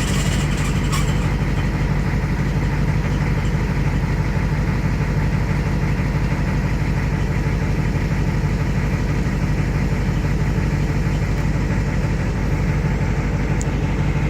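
Ford IDI diesel engine idling steadily, with a faint, steady high squeal over it. The squeal comes from a ZF5 five-speed transmission whose rear countershaft bearing race is spinning in the case.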